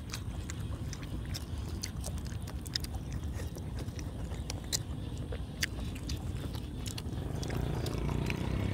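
Close-miked chewing and mouth sounds of people eating boiled pork cheek: scattered wet clicks and smacks over a steady low rumble.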